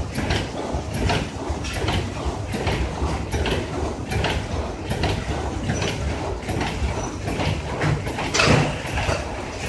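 Roll bag cutting machine running steadily over a low machine rumble, with a knocking stroke about every three-quarters of a second as it cycles through its cuts; one louder stroke near the end.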